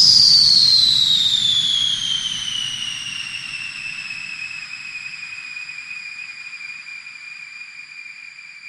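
Jet engine turbine whine dropping in pitch over the first few seconds, then settling into a steady high tone, while the low rumble and the overall sound fade away.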